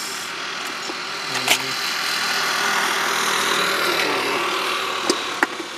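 A passing motor vehicle on the road, its engine and tyre noise swelling and then fading over a few seconds, with a few sharp metallic clicks from a key working a motorcycle's seat lock.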